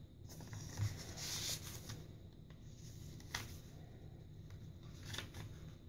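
Faint rustling and light taps of paper as the pages and a paper envelope of a handmade journal are handled and turned, with a brief rustle about a second in.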